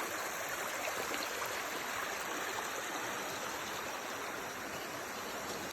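Floodwater coming down from a dam, rushing steadily past as a continuous hiss of flowing water.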